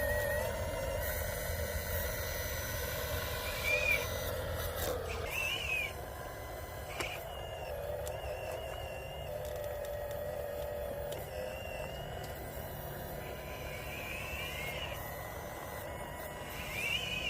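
Electric motors and gear drives of radio-controlled model construction machines running with a steady whine, with a low rumble in the first few seconds. Short rising-and-falling whines come about four times as the motors speed up and slow down.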